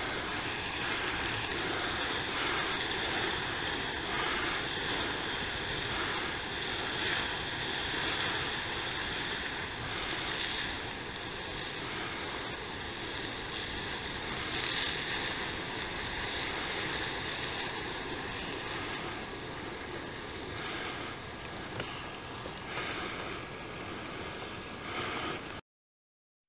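Steamboat Geyser venting steam: a steady rushing hiss that eases somewhat in the last few seconds, then cuts off abruptly.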